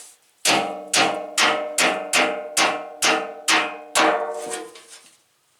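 Sledge hammer beating on a truck fender, about nine blows at a little over two a second, straightening a bend in it. Each blow rings on, and the ringing dies away after the last one.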